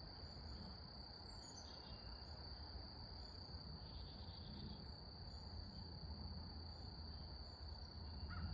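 Insects, likely crickets, trilling in one steady, unbroken high-pitched drone over a faint low rumble.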